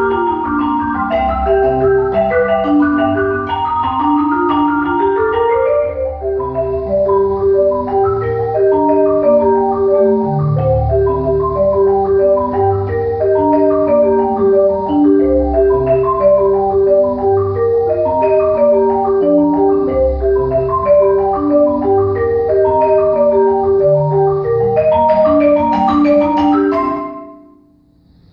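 A marimba duo played with yarn mallets: a dense pattern of ringing notes, with a rising run about five seconds in and one middle note struck over and over through most of the passage. The music stops about a second before the end, leaving the last notes to die away.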